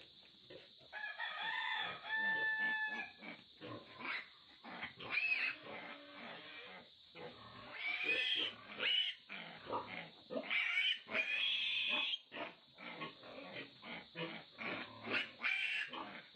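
Three-day-old piglet squealing over and over while it is restrained and processed, the high cries loudest about a second in and again from about eight to twelve seconds in.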